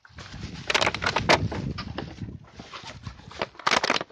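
Irregular close rustling and crackling with many sharp clicks, from someone moving through dry reeds and grass in shallow water. It gets louder about a second in.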